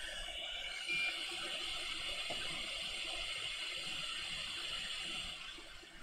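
Hot air rework station blowing a steady airy hiss while reflowing a small eight-pin BIOS chip on a hard drive circuit board, with a short beep about a second in; the hiss dies away near the end.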